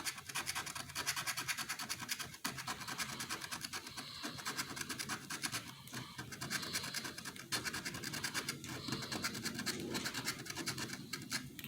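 Rapid scratching of a lottery scratch-off ticket: a coin or fingernail rubbing off the latex coating in quick repeated strokes, several strokes a second, with brief pauses.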